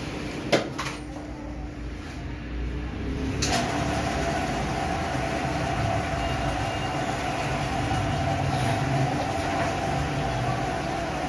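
A single sharp knock about half a second in. About three and a half seconds in, a steady mechanical hum with a low rumble sets in and holds.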